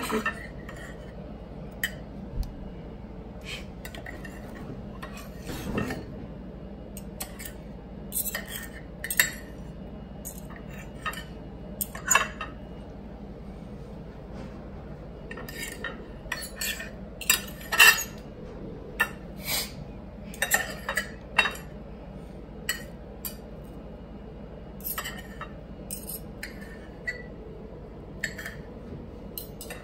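Metal knife and fork clinking and scraping against a plate while cutting pancakes into pieces, in irregular sharp clicks that come in scattered clusters.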